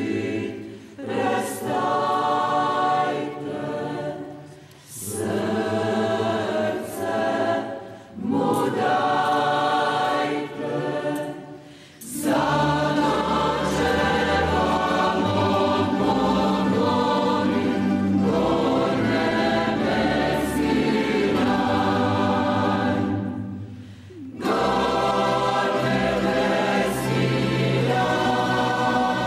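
Mixed church choir singing an offertory hymn with a tamburica orchestra accompanying. The opening is in short phrases with brief breaks between them; from about twelve seconds in it becomes a fuller, continuous passage with a deeper bass, broken once more by a short pause near the end.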